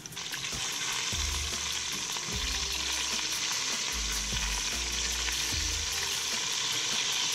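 Cornstarch-coated chicken pieces frying in hot oil in an enameled cast-iron Dutch oven, with the oil spattering as the pieces are turned with tongs. The sizzle rises sharply at the very start and then holds loud and steady.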